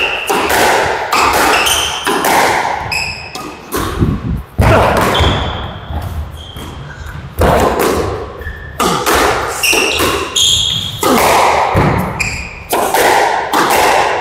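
Squash rally: the ball is struck hard by rackets and smacks off the court walls and floor, a string of sharp, echoing hits at irregular intervals. Short high squeaks come between the hits.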